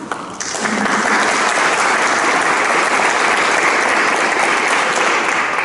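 Audience applauding, starting about half a second in, holding steady, then dying away at the end.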